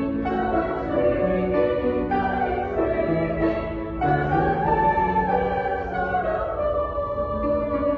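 Women's choir singing, with held chords that move slowly from note to note.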